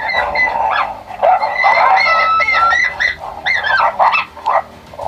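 Coyotes yipping and howling: several high, wavering calls overlap and glide up and down, with short yips among them.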